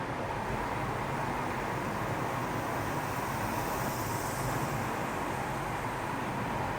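Steady vehicle running noise: an even low rumble with a constant mid-pitched whine.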